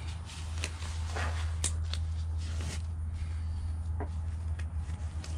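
Scattered light knocks and scrapes of parts and tools being handled during a concrete pump wear-part change, over a steady low hum.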